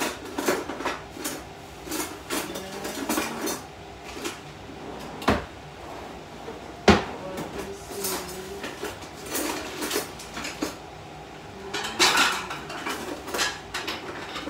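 Kitchen dishes and utensils being handled, a scatter of clinks and knocks with two sharper knocks about five and seven seconds in.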